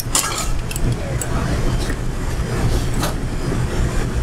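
Steady low machine rumble of a commercial kitchen. A few sharp clicks and knocks come from metal and plastic utensils being picked up and set down on a stainless steel prep table.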